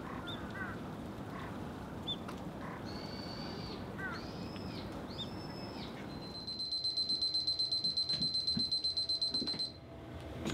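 Birds chirping over a steady outdoor hiss. Then, from about six and a half seconds in, a kitchen oven's electronic timer beeps rapidly in one high steady tone for about three seconds and stops, signalling that the cake's baking time is up.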